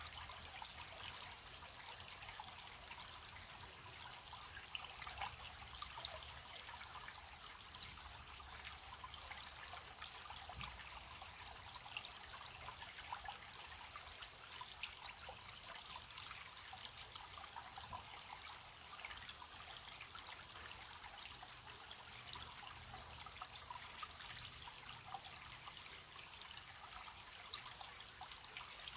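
A small stream trickling and babbling, with crickets chirping steadily in a high, even pulse.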